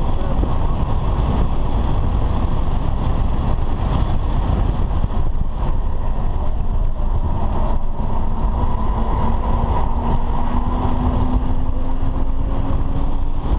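Cabin sound of a BMW F10 5 Series at speed on a race track: a steady rumble of road and wind noise under the engine. In the second half, an engine tone rises slowly as the car accelerates.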